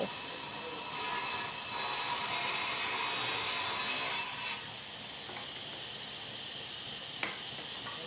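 Table saw ripping the rough edge off an old barn board, the blade cutting steadily through the wood. About four and a half seconds in the cut ends and the sound drops to a quieter steady noise; a single sharp click comes near the end.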